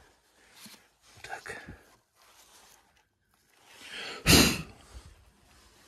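Short rustling and handling noises as an air filter and its cover are fitted to a petrol generator, with one sudden loud burst of noise about four seconds in.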